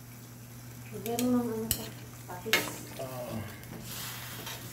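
A metal ladle stirring and scraping duck meat, potato and carrot chunks around an aluminium wok while they sizzle. There are a couple of sharp clinks of the ladle against the pan, about a second in and again shortly after.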